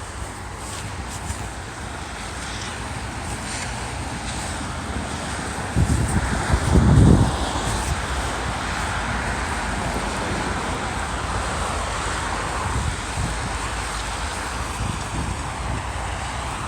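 Wind rushing over the microphone with steady road noise behind it during a snowstorm walk, with a louder low rumble about six to seven seconds in.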